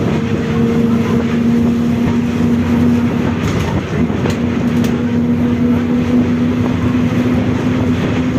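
Volkswagen 17-230 OD bus on the move with its differential growling loudly: a steady whine over the road and drivetrain rumble. The whine breaks off briefly about three and a half seconds in, then comes back. A few light clicks sound near the middle.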